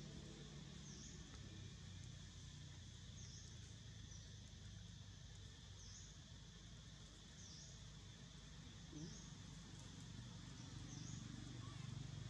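Faint outdoor background: a short, high chirp repeating about once a second over a low steady hum.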